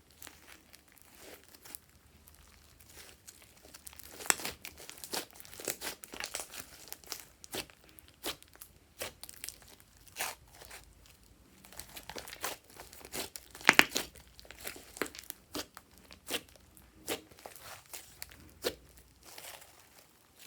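Slime being squeezed, stretched and pressed by hand, giving irregular sticky clicks and pops, with one louder pop a little past the middle.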